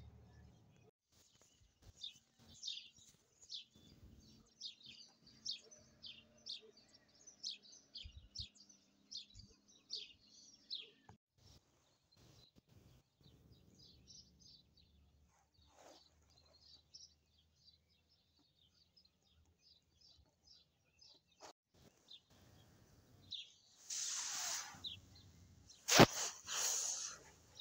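Small birds chirping, many short quick high chirps in fast succession for the first ten seconds or so, then sparser. Near the end, a loud rustling with one sharp knock.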